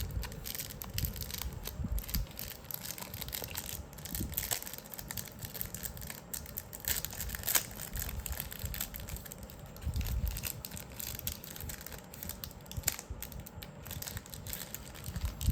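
Plastic and cardboard packaging of a Magic: The Gathering Secret Lair being opened by hand: irregular crinkling, crackling and tearing, with one sharper crack about seven and a half seconds in.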